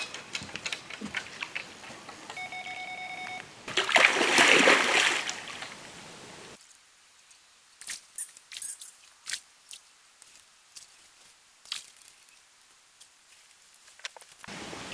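Electronic carp bite alarm sounding one steady tone for about a second, the sign of a fish running with the line. Just after, a loud burst of noise for about a second and a half, then quiet with scattered small clicks.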